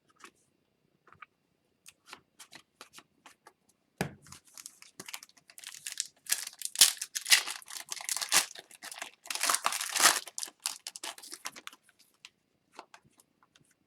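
Faint clicks of cards being handled, then a knock about four seconds in and a long stretch of crinkling and tearing: a hockey card pack's foil wrapper being torn open and handled.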